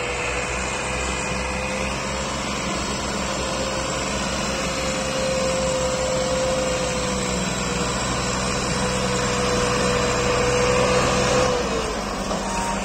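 Massey Ferguson 260 tractor's three-cylinder diesel engine running hard under load while pulling a heavily loaded trailer, blowing black smoke. The steady engine note drops in pitch near the end.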